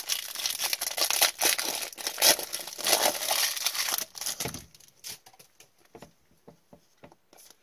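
Foil wrapper of a hockey trading card pack crinkling as it is torn open, for about four and a half seconds, then a few faint clicks.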